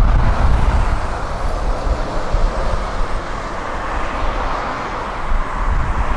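Renault articulated lorry's diesel engine and tyres as it drives past round a roundabout and pulls away, a steady low rumble and road noise, loudest at first and easing a little as it moves off.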